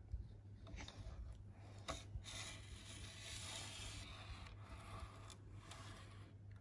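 Faint scraping and rubbing of an HO-scale model diesel locomotive being pushed by hand off a plastic rerailer and along model track, its wheels rolling on the rails. A few light clicks come in the first two seconds, and a steadier scrape follows in the middle.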